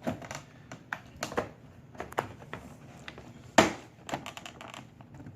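Irregular clicks and knocks of a car's power window master switch and its panel being handled and fitted into place, with one sharper knock about three and a half seconds in.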